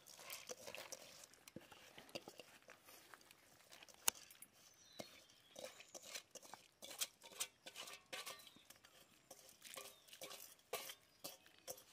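Raw rice being poured from a steel bowl into a pot of boiling water: irregular soft splashes and pattering clicks as the grains hit the water, with one sharp click about four seconds in.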